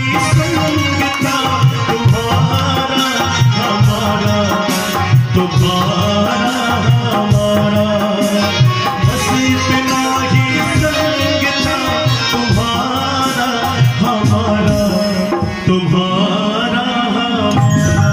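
Live Indian devotional music: a dholak hand drum keeps a driving beat under a harmonium and a keyed Indian banjo (bulbul tarang) playing the melody.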